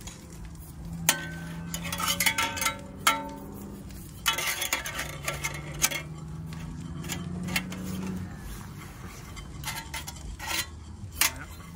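Thin titanium wood-stove panels clinking and tapping against each other as they are handled and slotted together. The sound comes in three bursts of light metallic clicks, each with a brief ring.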